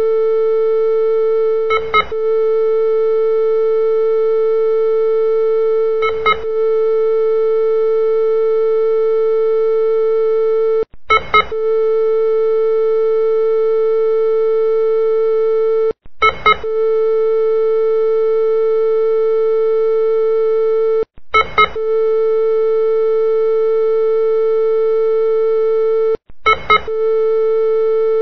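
Hospital heart-monitor sound effect: a continuous flatline tone, broken about every five seconds by a brief double blip like a heartbeat, six times.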